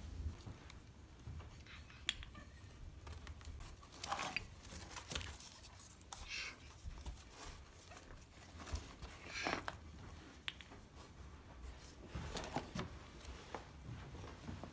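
Faint rustles and small knocks of handmade miniature garden pieces being picked up and set down in a cardboard box, with a child talking softly now and then.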